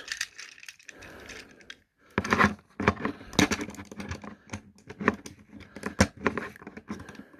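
Plastic parts of a Transformers Warrior-class Optimus Prime action figure clicking and snapping as its joints are rotated and pegged into place during transformation. Quiet handling at first, then a string of irregular sharp clicks from about two seconds in.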